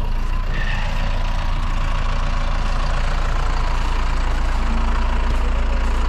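Farm loader's diesel engine running at a steady idle, a constant low drone.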